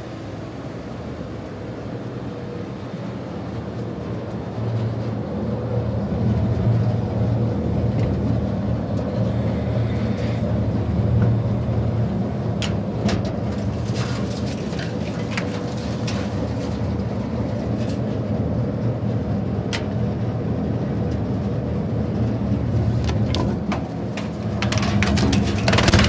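Tractor engine driving a Linddana TP760 PTO wood chipper, running with a steady low drone that grows louder about five seconds in. From about ten seconds on come scattered sharp knocks as timber is handled on the chipper's steel infeed. Near the end a louder rush is heard as wood goes through the chipper.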